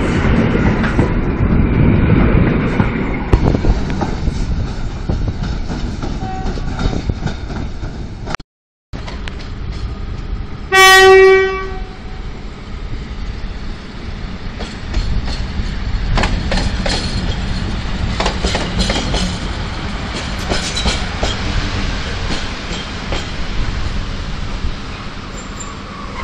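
An EN57 electric multiple unit rumbles as it pulls away along the platform. After a brief break, an ET22 electric locomotive running light gives one short, loud horn blast about eleven seconds in. It then rolls past, its wheels clicking over the rail joints.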